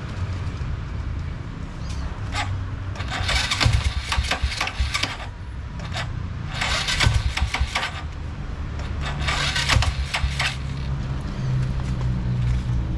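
Bored-out 185cc Honda Supra X single-cylinder engine running and being revved several times, being tested after carburettor tuning, with its note rising from about two-thirds of the way through.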